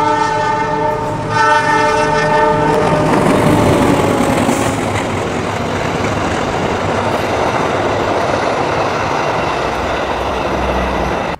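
Argo Parahyangan express train's diesel locomotive sounding its air horn in two blasts, the second ending about three seconds in. Then comes the steady wheel-on-rail rumble of the coaches running past at speed.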